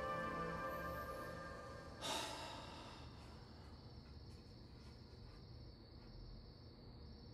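Soft background music fades out, and about two seconds in a man lets out a short sigh. After that it is quiet apart from a faint steady high tone.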